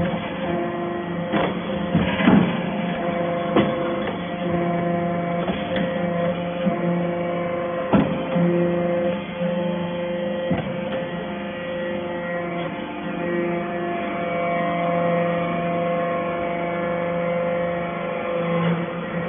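SBJ-630 hydraulic lead chip baler running with a steady hum, with a few sharp clanks at irregular moments, loudest about two and eight seconds in.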